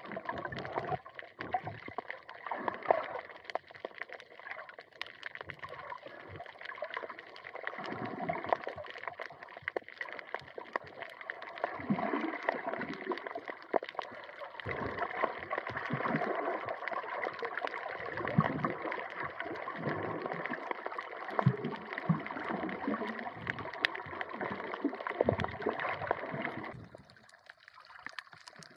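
Water sloshing and gurgling right at the microphone, with many small clicks and repeated low swells. It drops away abruptly near the end.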